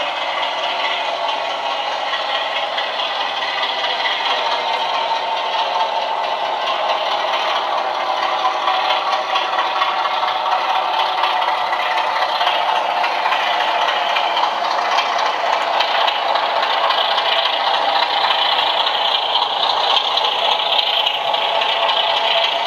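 Heljan model of a BR Class 33 diesel locomotive with a Loksound 4 sound decoder playing the Class 33's Sulzer diesel engine sound through a small speaker as the locomotive pulls a train of empty tank wagons, along with the rattle and clatter of the model train running on the track. The sound grows slowly louder as the train comes closer.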